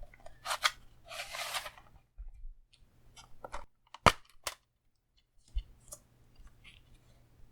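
Hands handling a plastic Blu-ray case: scattered clicks and taps, a short rustle about a second in, and one sharp snap about four seconds in.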